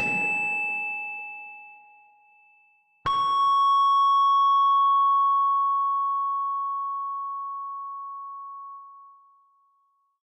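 Closing notes of ambient music: two bell-like struck tones. The first, at the start, fades within a few seconds. The second, about three seconds in, rings on as one long clear note and fades out near the end.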